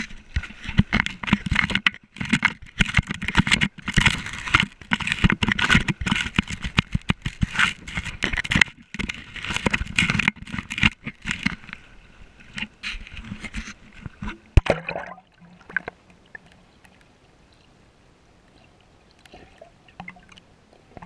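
Action camera being handled: a dense run of irregular knocks and scrapes on its housing and microphone. About fifteen seconds in, the camera goes underwater and the sound drops suddenly to a faint, muffled underwater hush.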